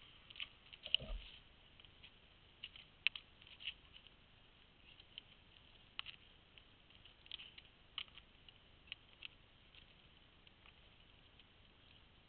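Faint, scattered clicks and light crunches from a cyclist moving about in cleated shoes on leaf-littered ground and handling parts while fixing a bicycle puncture, with a soft thump about a second in.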